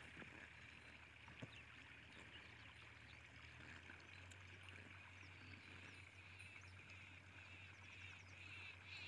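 Near silence: a faint, steady background hiss with a low hum.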